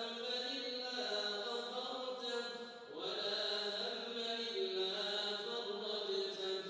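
Quran recitation: a solo voice chanting slowly and melodically in long held, ornamented notes, breaking briefly for breath about three seconds in before going on.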